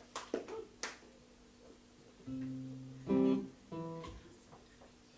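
The last few handclaps of applause, then an acoustic guitar plucked three times between songs, each note ringing and fading, the second one loudest.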